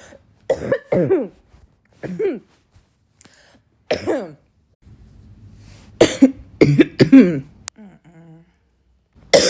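A woman coughing and clearing her throat: single coughs spaced out at first, then a loud run of hacking coughs about six seconds in. This is a lingering cough that she puts down to allergies and the tail end of an earlier illness.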